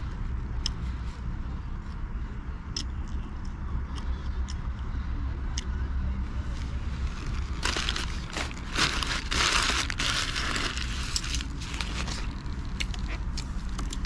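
Crumpled white paper wrapper rustling and crinkling in the hands, loudest for about four seconds in the middle, with scattered small clicks before and after. A steady low rumble sits underneath.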